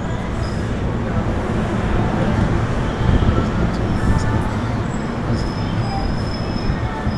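NJ Transit commuter train standing at the platform, giving a steady low rumble, with a thin high whine from about five seconds in.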